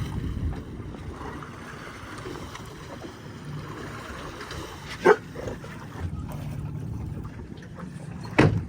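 Steady low rumble and wind noise aboard a fishing boat, broken by two sharp knocks, one about five seconds in and one near the end.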